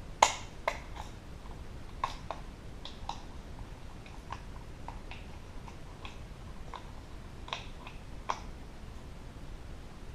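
Irregular small clicks and taps of hard plastic parts being handled and pushed together, with the sharpest click just after the start. This is the white plastic holder being slid into place on a door lock actuator and latch assembly.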